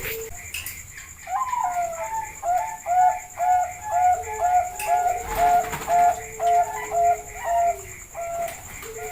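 Zebra dove (Bangkok-type perkutut) singing: a rhythmic run of short cooing notes, about two to three a second, starting about a second in and tailing off near the end.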